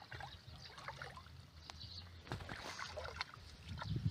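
Shallow muddy pond water sloshing and splashing in small irregular bursts as hands grope through it along the bank, louder in the second half.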